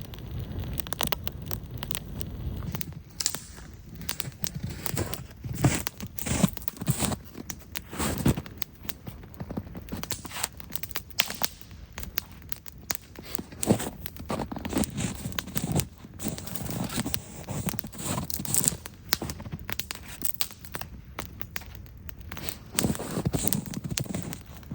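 Irregular crackling and snapping with occasional duller crunches, from a small campfire of birch bark and dead spruce and balsam fir twigs burning.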